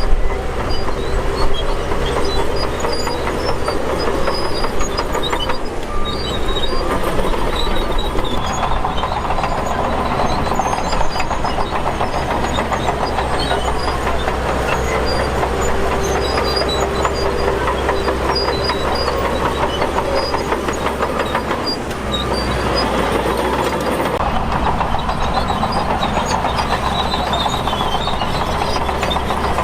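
Shantui DH17 crawler bulldozer at work: its diesel engine runs steadily under a continuous clatter of steel tracks, with short high squeaks now and then.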